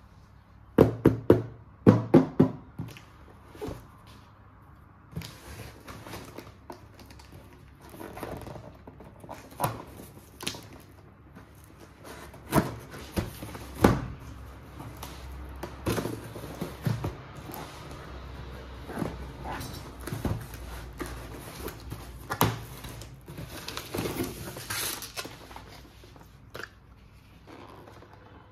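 Toy packaging and small plastic playset pieces being handled during an unboxing: irregular clicks, taps and knocks with rustling between them. The loudest knocks come in a quick cluster a second or two in.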